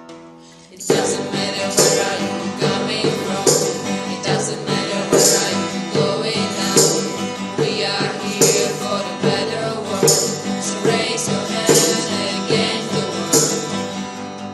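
Instrumental break of a song: soft plucked acoustic guitar, then about a second in the full band comes in with a steady beat, and it thins back to the guitar at the end.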